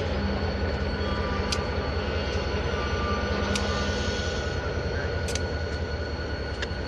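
Diesel freight locomotive running with a steady low rumble as it creeps along the track, with a faint higher steady whine and a few sharp clicks scattered through it.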